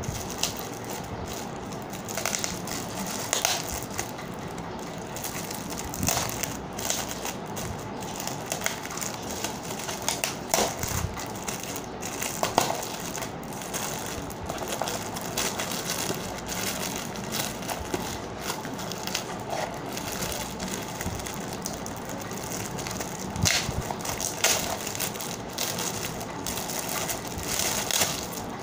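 Crinkly blue cellophane gift wrap being crumpled and pulled open by hand: a continuous crackling, dense with sharp crackles.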